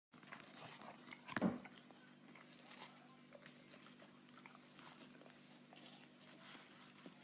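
Dog chewing on a watermelon rind: faint, wet crunching and biting in many small clicks, with one louder crunch about a second and a half in.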